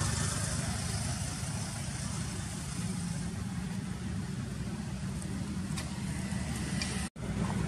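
Steady low outdoor rumble with a hiss over it, like an idling engine or traffic, that drops out for a split second near the end.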